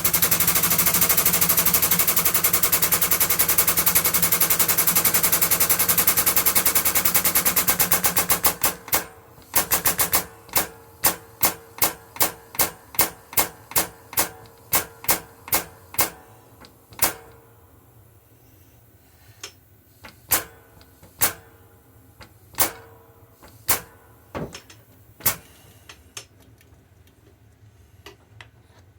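Air-powered press hammering a replacement bush home into a gear bore: a fast continuous rattle of strokes for about eight seconds, then single strokes about two a second that thin out to occasional knocks.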